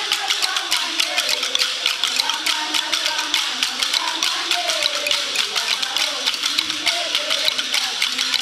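Many pairs of flat wooden sticks struck together in a fast, steady rhythm, a dense clatter of sharp clacks, with women's voices singing a chant under it.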